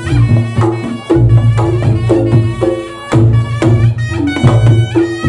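Reog Ponorogo gamelan ensemble playing loudly, kendang drum strokes to the fore over low ringing gong tones and higher pitched tones.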